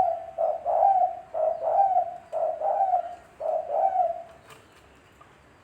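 Spotted dove (tekukur) cooing: a run of repeated coos in close pairs that stops about four and a half seconds in.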